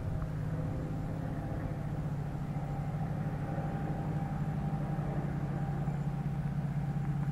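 EMD F40PH diesel locomotive with its 16-cylinder 645 engine approaching, a steady low drone that grows louder toward the end.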